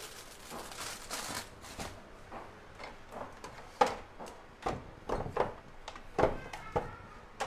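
Someone rummaging in a kitchen cabinet: scattered light knocks, clicks and clatters of things being moved about, a few of them louder in the second half.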